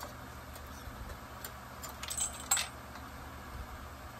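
Small metal parts clinking and tapping on a workbench during a chainsaw teardown: a short run of light metallic clicks about halfway through, the last one the loudest and ringing briefly.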